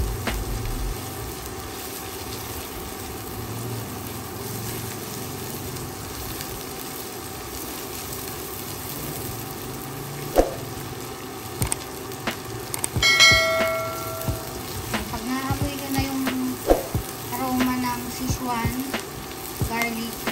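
Onions, garlic and Szechuan peppercorns sizzling in oil in a wok, stirred with a silicone spatula. About two-thirds of the way through, a single bell-like ding rings out briefly.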